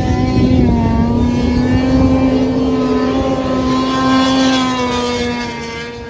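Snowmobile engine at high revs as it races past, the pitch holding high and steady, then dropping slightly and fading near the end.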